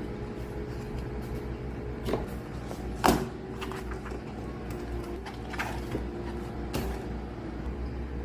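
Paper sheets and a metal-ringed binder being handled on a countertop: a few short knocks and rustles, the loudest a sharp clack about three seconds in. A steady low hum lies underneath.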